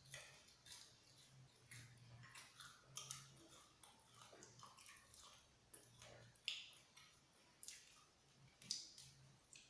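Close mouth sounds of chewing fried chicken: soft, irregular smacks and clicks, the flour coating gone limp and cold rather than crunchy. A faint steady low hum lies under them.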